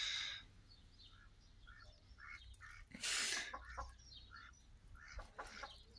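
Chickens clucking softly around a poultry waterer, with water splashing briefly twice as the waterer is emptied, once at the start and once about three seconds in.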